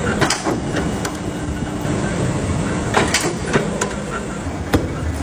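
Factory machinery running with a steady clattering din and irregular sharp clicks and knocks.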